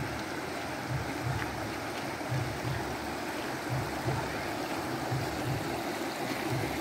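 Steady rush of flowing river water, with irregular low thuds underneath it about twice a second.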